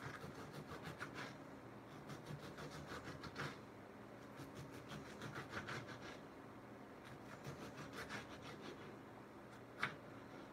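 Kitchen knife slicing a tomato on a cutting board: several quick runs of light taps as the blade meets the board, with one sharper knock near the end.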